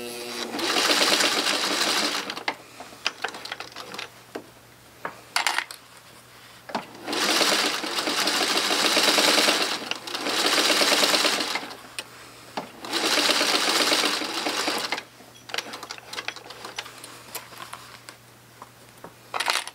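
Singer 301 sewing machine stitching through a denim jeans hem in short runs of one to two seconds, four times, with pauses between runs.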